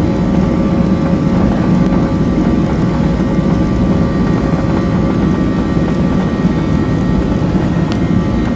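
Cabin noise of a Boeing 737-800 with its CFM56 turbofan engines running: a loud, steady rumble with a few faint steady hums on top.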